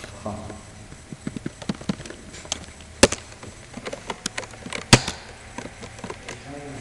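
Computer keyboard keystrokes: irregular clicking key presses, with two much louder presses about three seconds in and again near five seconds.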